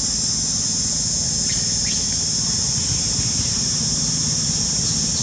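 A steady, high-pitched chorus of insects.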